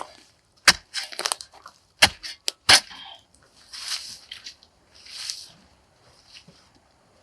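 Dry sticks snapping with sharp cracks, several in the first three seconds, followed by a few short, soft scraping rustles.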